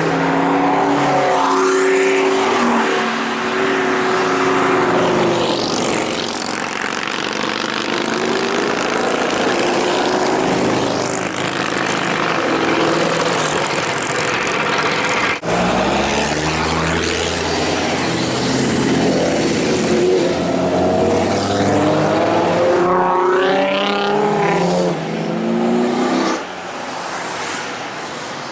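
Several high-performance car engines revving and accelerating past in turn, their pitch climbing as each pulls away; the sound breaks off abruptly about fifteen seconds in.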